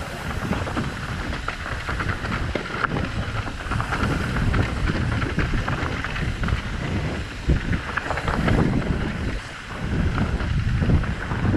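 Wind buffeting the microphone: a rough, rushing noise with a heavy low rumble and a few brief knocks.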